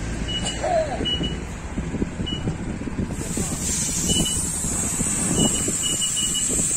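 Hiss of compressed air from an automatic tyre inflator's hose, starting about three seconds in and continuing steadily, with short high electronic beeps sounding at irregular intervals over a low mechanical rumble.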